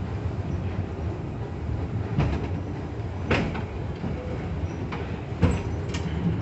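Kintetsu Nishi-Shigi Cable funicular car running downhill on its rails: a steady low rumble with several sharp knocks from the running gear, the loudest about five and a half seconds in.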